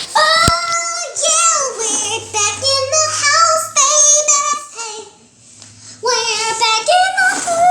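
A child singing a high-pitched tune in held, wavering notes, breaking off for about a second about five seconds in before singing on.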